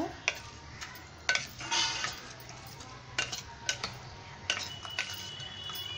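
Wooden spatula stirring raw chicken pieces through a thick yogurt and chili marinade in a glass bowl, with irregular soft scrapes and knocks against the glass.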